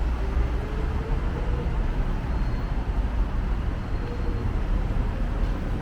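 Busy city road traffic: a steady low rumble of passing vehicles, with a faint engine hum that wavers slightly in pitch.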